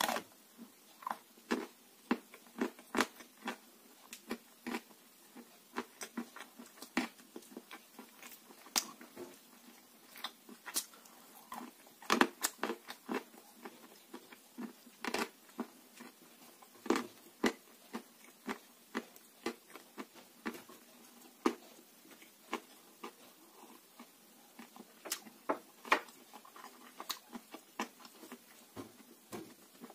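Grey clay lumps being bitten and chewed: irregular sharp crunches, about one to three a second.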